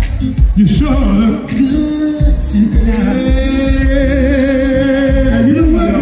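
Live R&B vocal performance: a male singer sings over the band's heavy bass. About halfway through he holds one long note with vibrato.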